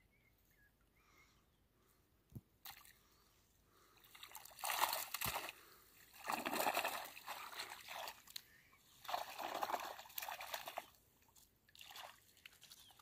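Shallow water sloshing and dripping as a mesh keep net is lifted out of the water and dunked back in, in several swells after a quiet first few seconds.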